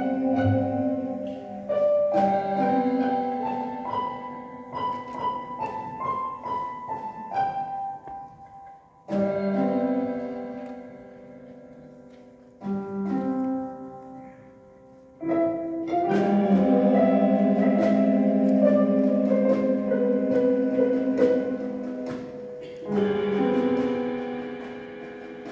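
Live orchestra playing held chords, with mallet percussion striking quick notes for a few seconds early on. The music breaks off and comes back in a few times, then swells to its fullest sound in the last third.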